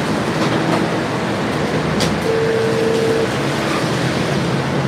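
Steady background noise with a low rumble. There is a sharp click about two seconds in, followed by a short held tone lasting about a second.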